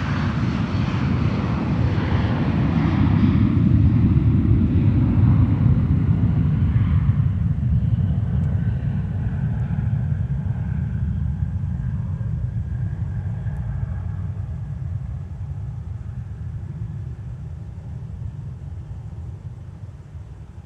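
Boeing 757-300 jet airliner's Rolls-Royce RB211 engines at takeoff power: a deep rumble that swells to its loudest about four seconds in, then fades steadily as the jet climbs away, its higher hiss dying out first.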